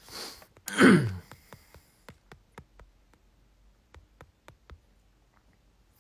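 A person's sharp breath in, then a loud, short exhaled vocal sound falling steeply in pitch, about a second in. Faint scattered clicks follow.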